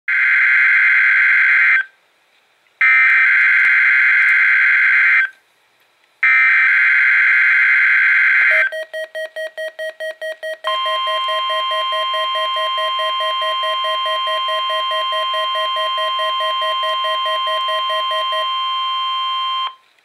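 NOAA Weather Radio test signal through a weather radio receiver's speaker: three bursts of warbling SAME digital header data, then rapid beeping about five times a second. About halfway through, the steady 1050 Hz warning alarm tone starts and runs for about nine seconds. The beeping stops shortly before the tone cuts off.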